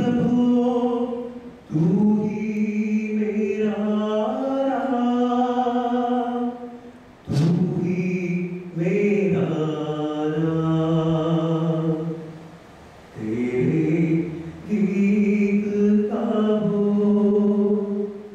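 A man singing solo and unaccompanied into a handheld microphone: long held notes in phrases, with short breaths between them about two, seven and thirteen seconds in.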